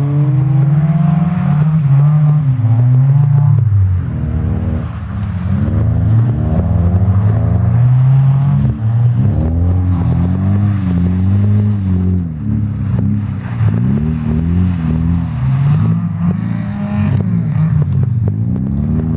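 Car engine revving hard. Its pitch climbs and drops again and again, about every one to two seconds, as the throttle is worked on and off.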